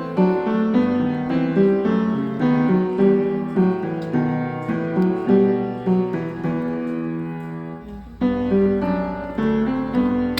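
Background piano music, a run of single notes and chords; it fades briefly about eight seconds in and then starts again.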